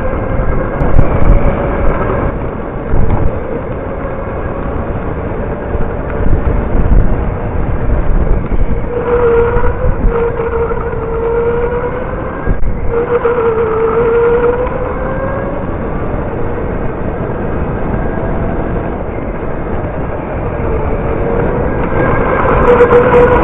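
Electric go-kart running at speed: the motor's whine rises and falls in pitch as the kart speeds up and slows, loudest about halfway through, over a low rumble and wind buffeting on the kart-mounted camera.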